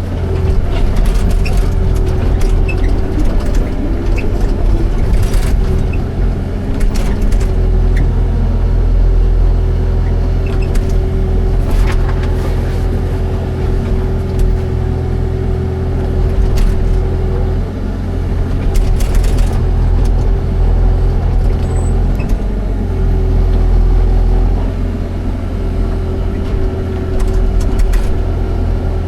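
Excavator diesel engine running steadily under load, its low drone dipping and rising as it works, with short knocks and scrapes from the machine now and then.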